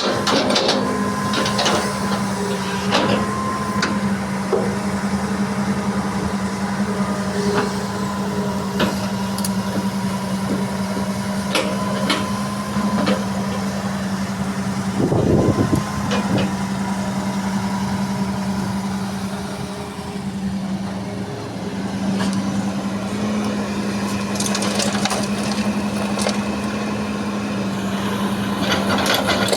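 Hydraulic excavator's diesel engine running steadily while loading a dump truck, with a thin steady high tone over it. Scattered clanks and knocks of bucket and rock run throughout, with a louder burst about fifteen seconds in.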